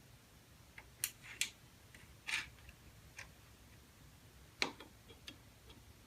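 Faint, irregular small metal clicks and taps, about eight of them, as a nut is worked into place on the Atlas lathe gearbox casting with a magnetic pickup wand.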